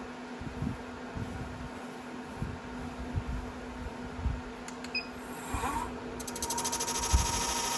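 Wood lathe running with a steady hum and a few low knocks. About six seconds in, a higher whine and a fast, even high ticking start.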